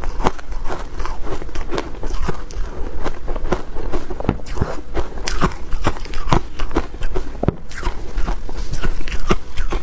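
Chewing a mouthful of crumbly purple frozen ice: dense, irregular crunches and crackles, several a second.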